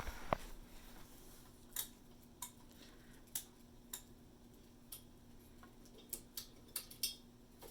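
A sharp knock just after the start, then scattered light clicks and taps at irregular intervals, as purpleheart hardwood pieces are handled.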